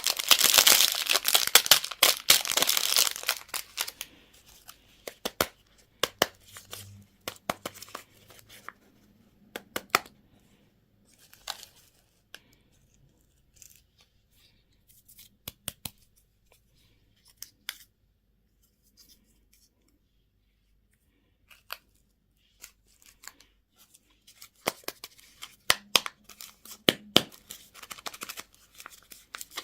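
Candy packaging being torn open and crinkled, a dense crackling tear at the start. Then comes a run of scattered sharp clicks and taps with a quiet pause in the middle, and more crinkling and tearing near the end.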